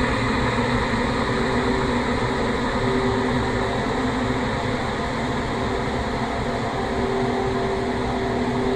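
Horror sound effect: a steady, rumbling metallic drone, like a train's din, with faint held tones drifting in and out over it.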